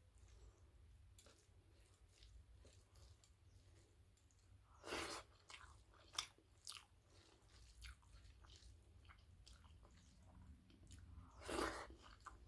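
Close-up mouth sounds of a person eating rice with potato-and-drumstick curry: quiet chewing and small wet clicks, with two louder mouth noises, one about five seconds in and one near the end.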